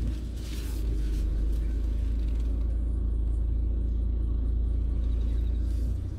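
Low, steady rumble of a Renault Samsung SM6 driving slowly, its engine and tyre noise heard inside the cabin. The rumble dips briefly near the end.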